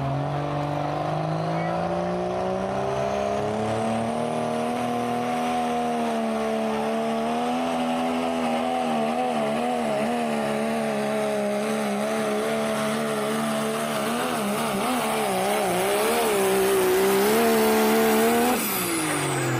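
Turbocharged diesel pickup truck engine at full throttle on a pull. The revs climb over the first few seconds, then hold high with a wavering pitch. About eighteen and a half seconds in the driver lets off: the engine note drops sharply and a high turbo whistle falls away.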